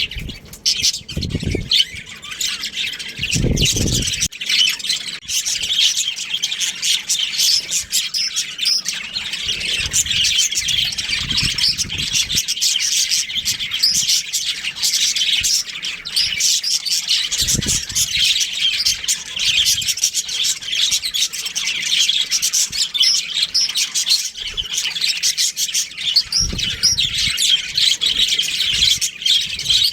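Budgerigars chirping and chattering nonstop in a steady stream of high, quick chirps, with a few dull low thumps along the way.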